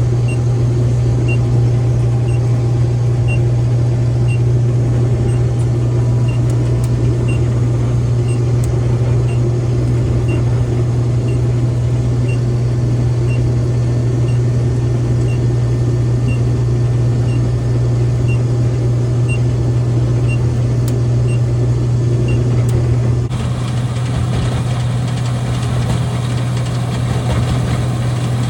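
Combine harvester's diesel engine running at a steady hum, with faint regular ticking about one and a half times a second. Near the end the sound shifts to a hissier, slightly quieter character.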